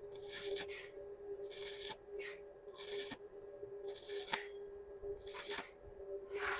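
Stick-welding arc crackling from a 2.5 mm electrode on thin box-section steel at about 105 A. The welder is fed by a Kobe X Super 220 welding machine. The arc comes in short bursts about once a second, as when stitch-welding thin metal, over a steady hum.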